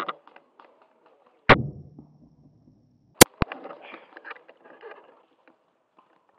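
Two shots from an airsoft sniper rifle, each a sharp crack with a short low thump, about a second and a half in and again right at the end. Two sharp clicks come close together around three seconds in.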